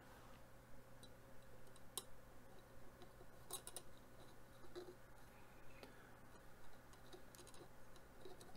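Near silence with a few faint clicks and light scratching as an enamelled copper wire and its toroid are handled and positioned against a plastic antenna frame.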